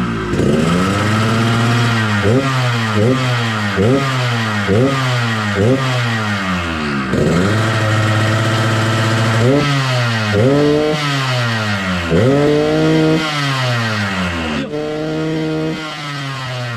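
Yamaha RX-King's two-stroke single-cylinder engine being blipped repeatedly, revs rising sharply and dropping back about once a second, then a few longer revs before it settles to a steady idle near the end. The exhaust is tuned for the deep 'ngorok' growl.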